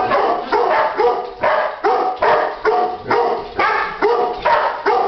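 A pet dog barking over and over in a steady rhythm, about two to three barks a second.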